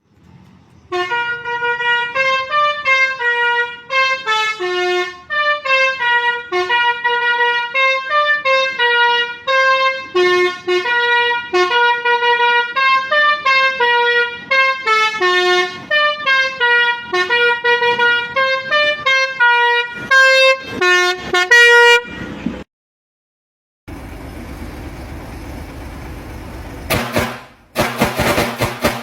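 A 4-ft musical vehicle horn playing a quick tune of short, stepping notes for about twenty seconds. After a brief gap there are a few seconds of steady noise, then loud bursts of sound near the end.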